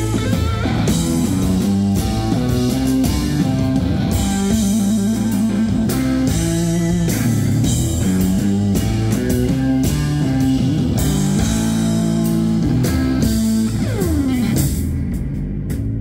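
Live rock band playing without vocals: electric guitar through Marshall amplifiers over a drum kit, in a psychedelic blues-rock style. Near the end a guitar note slides down in pitch and the drums drop out.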